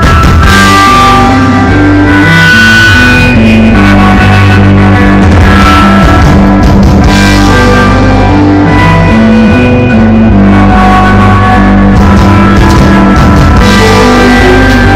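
Instrumental rock band playing live over a PA: electric guitars, keyboards and drum kit. The phone recording is so loud that the sound is saturated and distorted.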